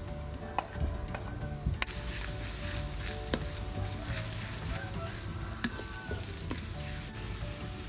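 Sliced shallots frying in hot oil in a stainless steel wok, stirred with a wooden spatula. A few sharp clicks and taps come first, then a steady sizzle starts about two seconds in and keeps on, with occasional scrapes of the spatula.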